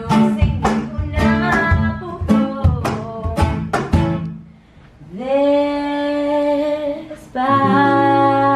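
Acoustic guitar strummed with cajón strikes on the beat. In the second half, a woman sings two long held notes over the guitar, the first sliding up into pitch.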